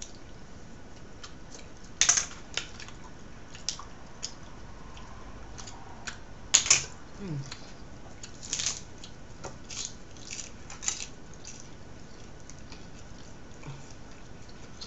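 Close-up eating noises as grilled fish is picked apart by hand and chewed: about ten short, sharp clicks and smacks at irregular intervals, the loudest about six and a half seconds in.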